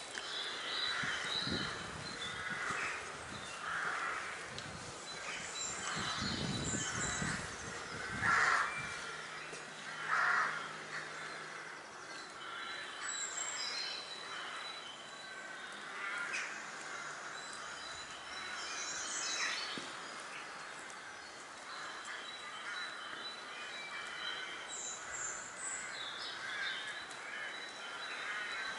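Crow-family birds cawing repeatedly, the loudest calls about eight and ten seconds in, with smaller birds chirping at a higher pitch between them.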